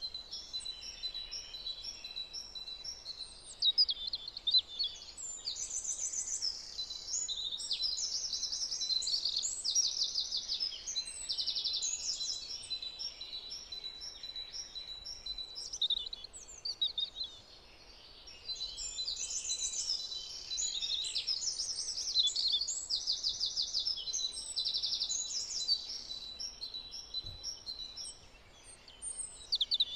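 Several songbirds singing at once: overlapping chirps and fast trilled phrases of rapidly repeated notes, busiest about a fifth of the way in and again past the middle, with a short lull between. A thin, steady high tone runs underneath.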